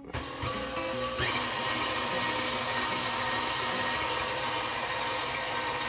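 KitchenAid stand mixer motor turning a stainless steel food grinder attachment. It starts with a few knocks, steps up in speed about a second in, then runs with a steady whine.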